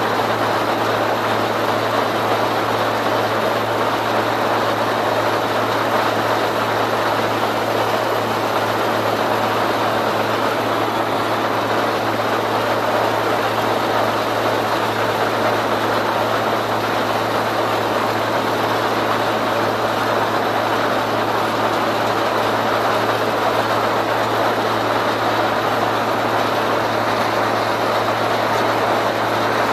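Claas Mercator 75 combine harvester running steadily: a constant, even drone with a low hum underneath.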